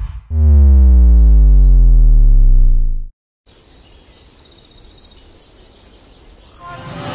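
A loud, deep tone sliding steadily down in pitch for about three seconds, then cutting off abruptly: a descending bass-drop sound effect. After a short silence, faint outdoor background with high chirps follows, and a louder sound begins to swell near the end.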